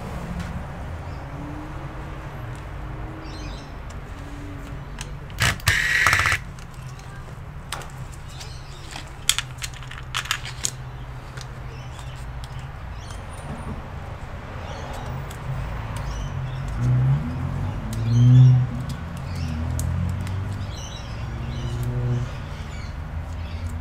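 An electric screwdriver runs in short bursts, backing screws out of a laptop's base and hinge area, with clicks of small parts and tools being handled. The loudest whirring comes in a cluster of pulses in the second half, after a sharp burst about six seconds in.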